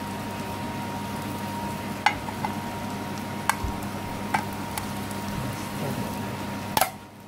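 Onions, garlic and bay leaves sizzling in oil in a steel frying pan, with a few sharp metallic clinks against the pan, the loudest near the end.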